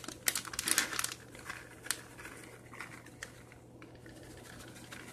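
A plastic bag of shredded cheese crinkling as it is shaken over a baking dish, busiest in about the first second, with a sharp click near two seconds, then fainter rustling.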